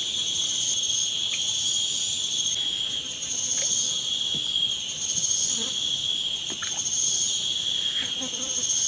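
Steady, shrill chorus of insects: several high-pitched tones held together without a break, with a few faint small ticks.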